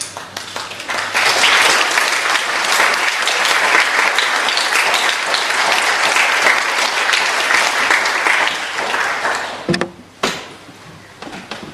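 Audience applauding. The clapping swells about a second in, holds steady, then dies away near the end, with a couple of knocks as it fades.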